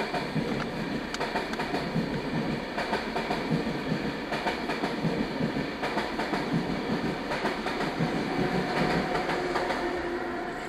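A Trenord double-deck electric regional train passes over a level crossing, its wheels clattering over the rail joints in a rapid clickety-clack. The noise fades near the end, heard from inside a car.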